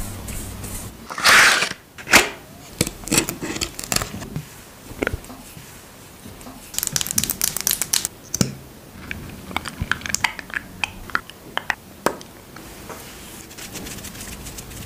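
Close-miked ASMR tapping and handling: long acrylic nails tapping and scratching on makeup items such as lip gloss tubes, mixed with rustling, crinkling bursts. A dense run of quick taps comes around the middle.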